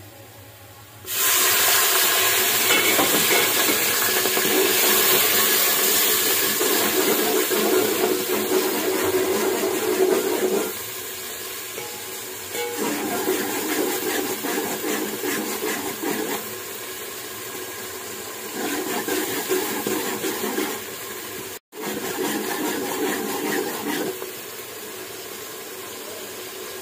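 Liquid poured onto browned onions in hot oil in a steel pot sets off a sudden loud hissing sizzle about a second in, which goes on as the mixture is stirred with a metal slotted spoon and eases to a lighter bubbling sizzle after about ten seconds.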